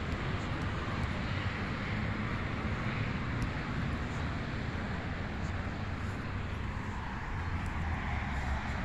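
Steady outdoor background noise: a low rumble under an even hiss, with no single event standing out.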